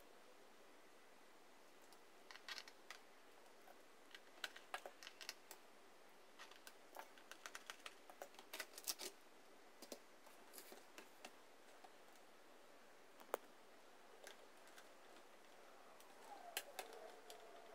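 Small scattered clicks and taps of screwdrivers and screws as the screws are taken out of the plastic underside of an HP laptop, with one sharper click about thirteen seconds in. Near the end, a brief scraping creak of the laptop's plastic casing being pried up.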